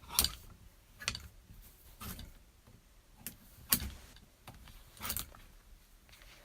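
Clothes on metal hangers being slid along a clothes rack, the hangers scraping and clinking on the rail in six short bursts, about one a second.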